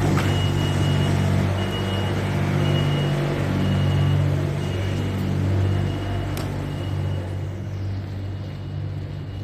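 Large vehicle engine running with a steady low hum, with a short high beep repeating about once a second over the first six seconds. There is a single sharp click about six seconds in, and the sound eases off near the end.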